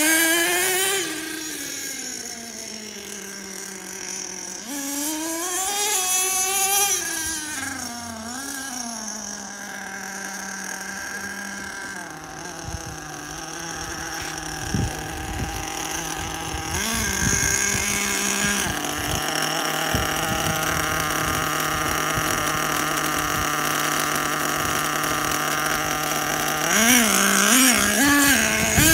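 HPI Savage 4.1 nitro RC monster truck's small two-stroke glow engine revving up and down, then running at a steady pitch for most of the time, with a few quick throttle blips near the end.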